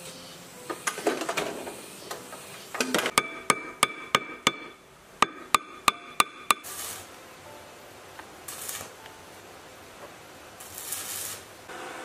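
A hammer striking the metal housing of an electric water-pump motor: about eleven sharp, ringing blows in two quick runs of five or six, roughly three a second, after some clattering of metal parts about a second in.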